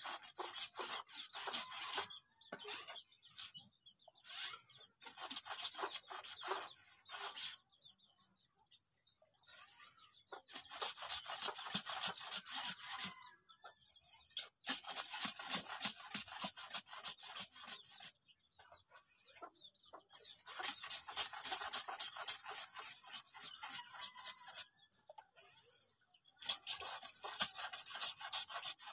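Garden sprayer spraying the melon seedlings, a rasping hiss in bursts of about three to four seconds with short pauses between them.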